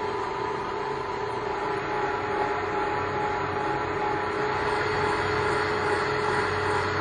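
Universal milling machine running steadily, its motor and gearing giving an even whine over a mechanical hum.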